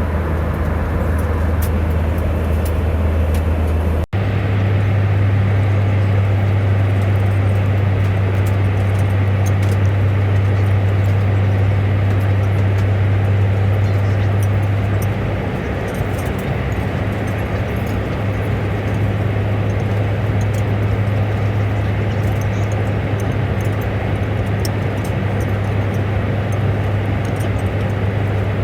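Steady low drone of a vehicle heard from inside while travelling, with a momentary break about four seconds in.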